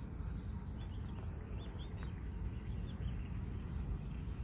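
Open-air ambience: a steady low rumble with a few faint, short bird chirps and a thin, steady high whine.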